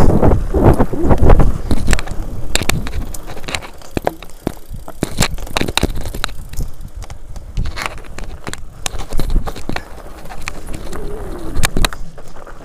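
Mountain bike rolling fast down a rocky dirt trail: tyres on loose gravel and stones, with the bike rattling and clicking over the bumps throughout. Wind rumbles on the microphone for the first couple of seconds.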